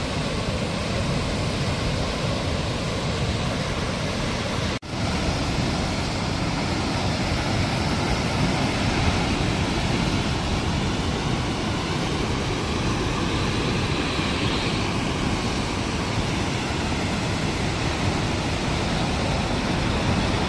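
Steady rushing noise from a vehicle driving along a riverside road: road and wind noise mixed with the rush of a swollen, fast-flowing river. The sound cuts out for a moment about five seconds in.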